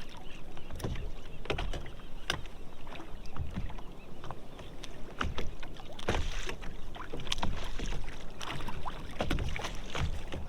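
Water splashing and slapping against an ocean kayak's hull in choppy water, with scattered short knocks and clicks, and wind on the microphone.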